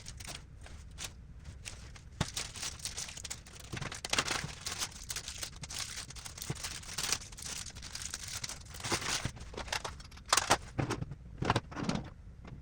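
Irregular small clicks, taps and rustling from hands handling small parts and screws during assembly, busier and louder near the end.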